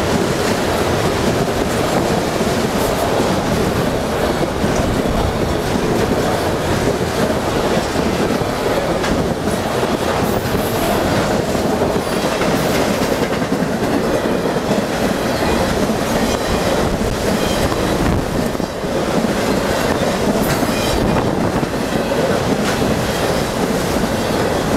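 Enclosed autorack freight cars rolling past close by: a steady, loud rumble of steel wheels clicking along the rails.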